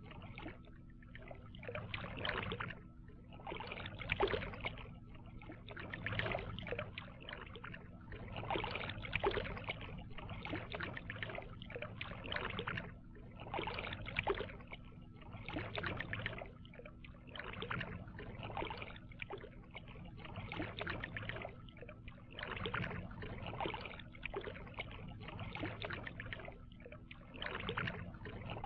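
Canoe paddles stroking through the water, a splash and swish about once a second in a steady rhythm.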